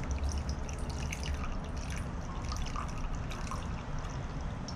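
Water trickling and dripping, with many small irregular drips, as liquid is poured off settled chestnut starch. A steady low hum runs underneath.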